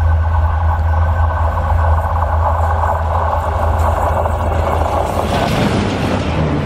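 Indian Railways ALCo diesel locomotive, a WDM-3A type, hauling an express at speed. Its engine rumbles steadily as it approaches. About five seconds in it passes close, and the rush of wheels and coaches takes over.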